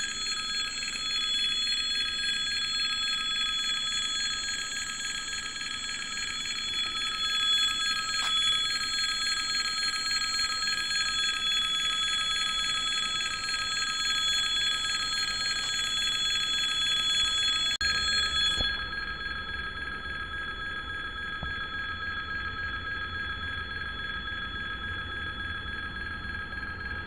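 Railway level crossing warning bell ringing continuously. About two-thirds of the way in, its ringing turns quieter and duller and a low rumble comes in underneath.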